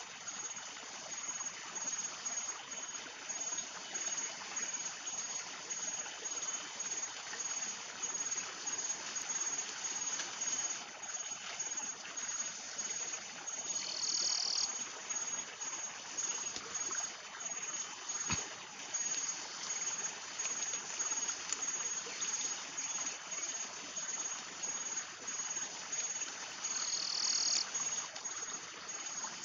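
Forest ambience: the steady rush of a stream with an insect trilling in high, evenly spaced pulses. A louder insect buzz cuts in briefly three times: near the start, about halfway, and near the end.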